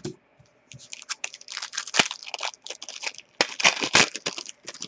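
Trading cards and their foil pack wrappers handled by hand: a run of dry crinkling and rustling, loudest about two seconds in and again near four seconds.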